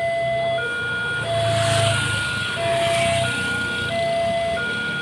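Railway level-crossing warning alarm sounding with the barrier down: two electronic tones, one low and one high, taking turns about every two-thirds of a second. Motorcycle engines pass underneath it.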